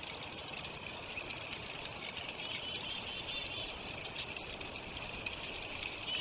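Steady rush of flowing river water, with a quick run of high, short bird notes about two and a half seconds in and another starting near the end.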